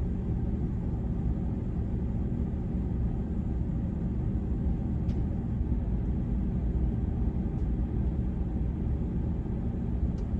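Chevrolet Express 2500 van engine running, a steady low rumble heard inside the cab, with an unhealthy noise that the owner takes for a bad bearing, though he wonders if it is just the cold.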